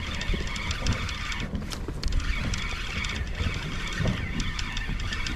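Steady low rumble and hiss of wind and water around a small fishing boat, with a few faint light clicks.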